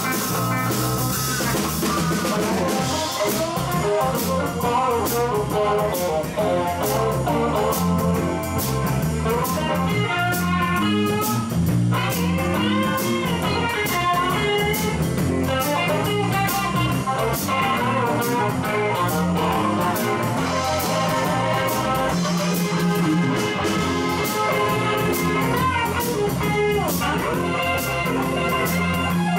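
Live blues band playing an instrumental passage: electric guitars over bass and drum kit, with a lead guitar line that bends its notes.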